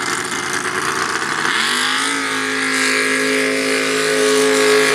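Lifted mud truck's engine revving hard as it launches through the mud pit. The pitch climbs about a second and a half in, then holds steady at high revs.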